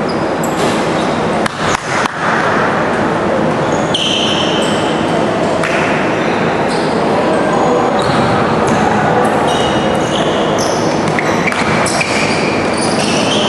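Basketball shoes squeaking on a gym's hardwood floor as players run in a game: many short, high squeaks, thickest from about four seconds in, over a steady hall noise.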